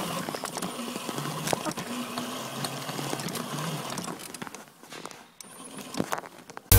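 Small 800-watt electric quad bike running across grass: the electric motor whirs and the frame rattles with light clicks, as picked up by a phone wedged on the quad. The sound drops away briefly about five seconds in.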